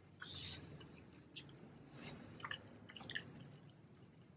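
Faint chewing of a mouthful of pizza, with scattered small clicks and squishes. A short hissy scrape about a quarter second in is the loudest sound.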